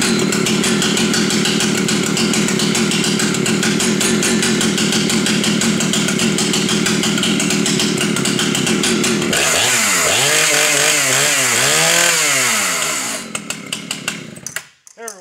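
Husqvarna 2100 CD 100 cc two-stroke chainsaw idling with a rapid, even popping beat, then revved up and down about three times, dropping back to idle and cutting off suddenly near the end.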